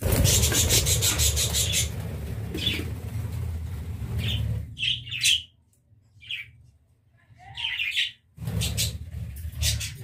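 Loud rubbing and scraping close to the microphone as the clay nesting pot is handled, for the first few seconds and again near the end. Budgies chirping in a few short, high calls in between.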